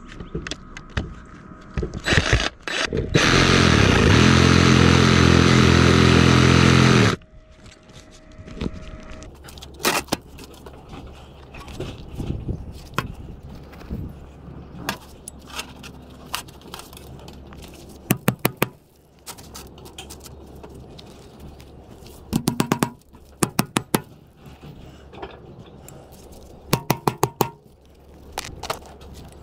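Cordless DeWalt reciprocating saw cutting into the roof at the vent opening: a couple of short bursts, then a steady run of about four seconds that stops abruptly. After that comes a series of quick hammer strikes in short clusters of four or five blows, nailing a metal box roof vent down onto the shingles.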